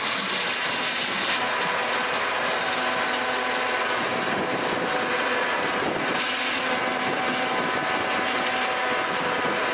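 Small farm tractor's engine running steadily under load as the tractor pulls a plough through the soil, heard close to the engine.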